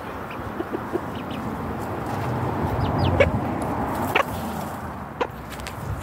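Chicken clucking: a few short, separate clucks about three, four and five seconds in, over a steady low background noise.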